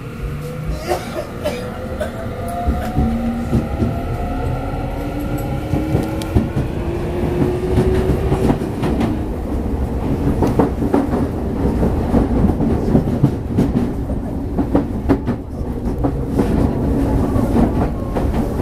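Tokyu 6000 series electric train pulling away and accelerating, heard from inside the car. The inverter and traction motors whine, rising steadily in pitch over the first eight or nine seconds. After that the run settles into a steady rumble, with the wheels clicking over the track again and again.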